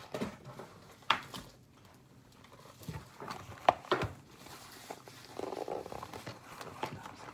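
Hands handling and opening a trading-card box and its packaging: a few sharp clicks and taps, then a short stretch of rustling about five seconds in.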